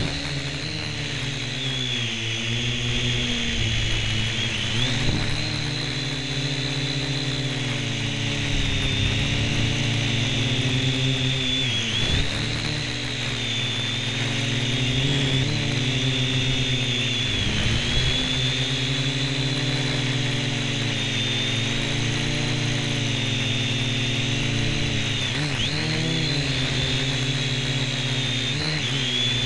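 Syma X1 toy quadcopter's four small electric motors and propellers whining in flight, picked up close by the camera mounted on the craft. The pitch of the whine rises and falls again and again as the throttle changes.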